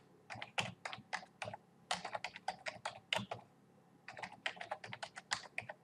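Typing on a computer keyboard: quick irregular runs of key clicks, with a short pause about halfway through.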